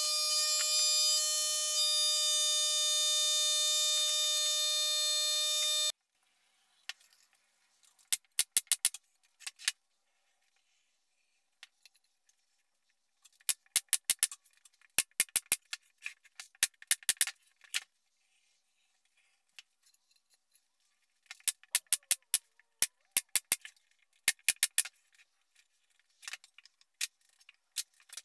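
A steady, loud buzzing tone held on one pitch with its overtones, cutting off abruptly about six seconds in. After it come scattered clusters of light, sharp clicks and rattles with silence between them.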